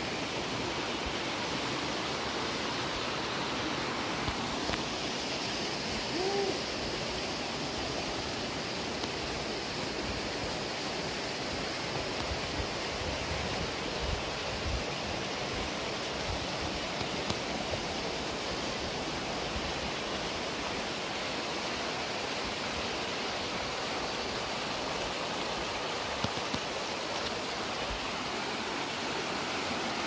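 Mountain stream rushing over rocks, a steady even wash of water. One short pitched call about six seconds in.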